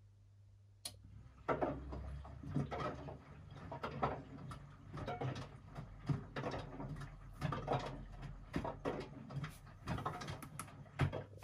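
Washing machine giving irregular mechanical clicks and knocks, a few each second, starting with a sharp click about a second in and stopping shortly before the end.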